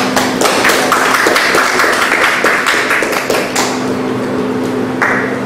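A small group clapping hands in applause, a dense patter of claps for about three and a half seconds that then dies away, with a brief last flurry near the end.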